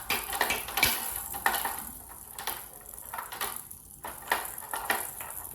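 Plastic balls and parts of a plastic ball-drop toy clicking and clattering: a run of light, irregular clicks and knocks, thicker in the first two seconds and sparser after.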